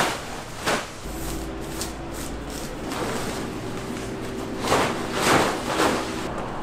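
A plastic tarpaulin rustling and swishing as it is pulled off a stall cover and gathered up. There are a few sharp swishes at the start and a cluster of them about two-thirds of the way through.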